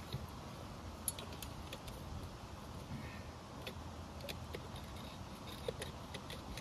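Scattered light metallic clicks and clinks of a steel beaver trap and its chain being handled and worked loose, over a low steady rumble.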